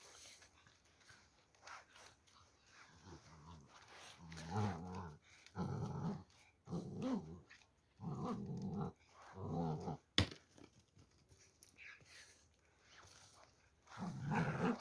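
Kangal puppy growling in a series of short bursts, each under a second, beginning about four seconds in, as it attacks a broom. A single sharp knock comes about ten seconds in.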